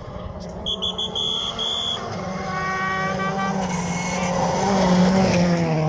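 Rally car engine approaching at speed on a gravel stage, growing steadily louder and rising in pitch as it comes through the bend. Near the start, a few short shrill toots sound over it.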